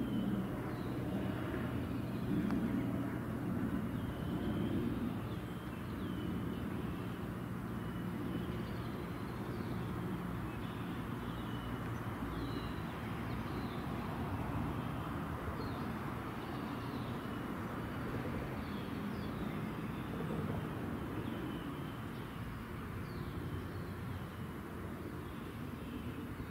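Outdoor ambience beside a rail line: a steady low rumble of distant vehicles, a little stronger in the first few seconds, with small birds chirping throughout. A car passes close by about halfway through.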